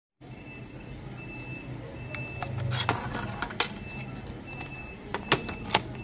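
Sharp clicks and taps of a plastic keypad mobile phone being handled, over a steady low background hum.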